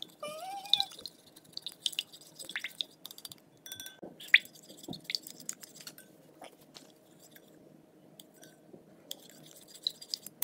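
Metal spoon stirring a runny mix of white glue and warm water in a glass bowl: wet sloshing and squelching with scattered light clicks of the spoon against the glass.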